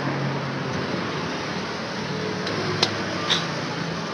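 Steady mechanical hum in the background, with two sharp metallic clicks about three seconds in as the metal parts of a scooter's centrifugal clutch assembly are handled.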